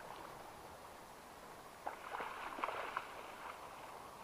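Water splashing as a hooked brown trout thrashes in shallow river water and is scooped into a landing net. There is a short burst of splashes about two seconds in that lasts about a second, over a faint steady background.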